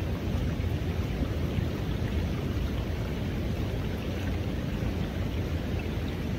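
Water rushing steadily through a gold sluice box, an even splashing noise with a heavy low rumble that does not let up.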